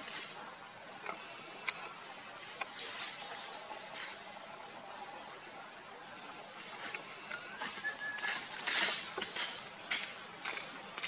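Insects droning steadily at one high pitch, with scattered light clicks and rustles and a louder rustle about nine seconds in.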